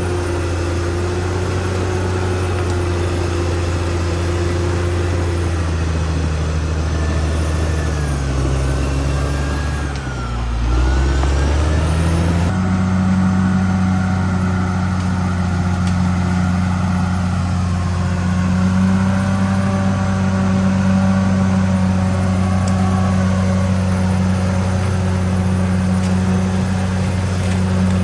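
Caterpillar D6R XL bulldozer's diesel engine running steadily. Its pitch dips about a third of the way through and comes back up, and it then runs somewhat louder.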